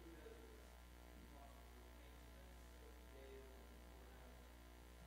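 Near silence with a steady low electrical hum, mains hum on the sound system's feed.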